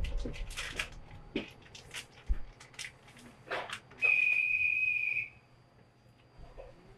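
A whistle blown once about four seconds in, a single steady high note lasting just over a second, after a few seconds of scattered light clicks and knocks.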